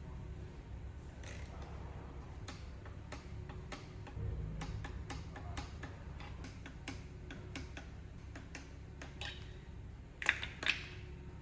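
A run of sharp metallic clicks, about two a second, from hand tools and parts during engine reassembly. Two louder metal clanks come near the end, over a low steady hum.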